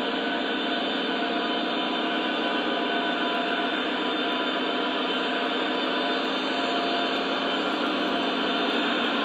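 Model train running on a layout: Burlington Northern model diesel locomotives pulling hopper cars, a steady whirring rumble of wheels and motors on the track, a little louder near the end as the locomotives come closer.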